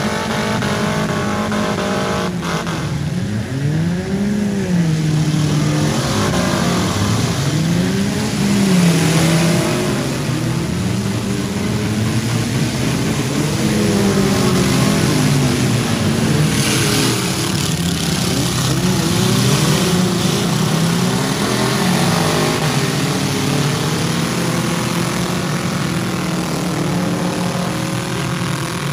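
Engines of several four-cylinder demolition derby cars revving over one another, their pitches rising and falling, with a sharp bang about two seconds in.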